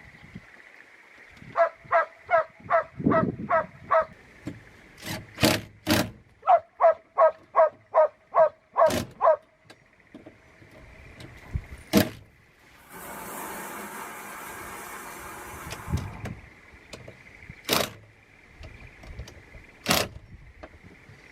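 Hand work on a door: two runs of quick, even, squeaky strokes at about three a second, several sharp knocks, and about three seconds of steady hissing noise.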